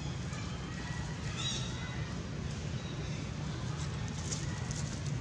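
Baby macaques giving a few faint, short high squeaks over a steady low rumble.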